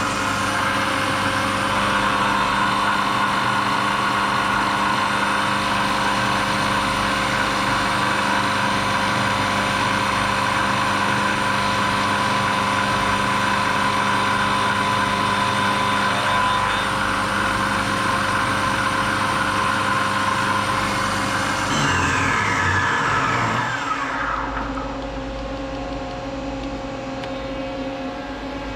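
Milling machine spindle running steadily with a whine as a cutter skims dry aluminium. About 22 seconds in, the whine falls in pitch as the spindle spins down, leaving a lower, quieter machine hum.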